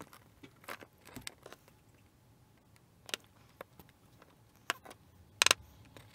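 Handling noise of wires being twisted together by hand on a wooden workbench: scattered light clicks and taps, with a short louder rattle near the end.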